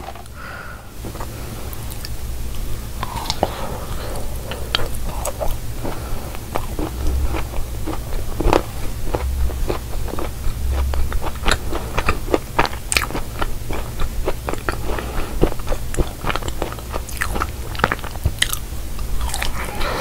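Close-miked chewing and biting of a crumbly cookie pie, with many small sharp crunches and crackles coming in quick succession.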